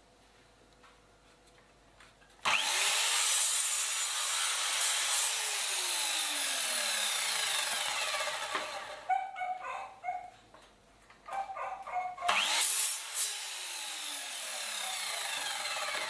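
Electric miter saw (RYU) making two crosscuts through a reclaimed jati belanda (pine) board: each time the motor spins up with a rising whine, the blade cuts loudly through the wood, and the pitch falls away as it spins down. A few knocks come between the two cuts.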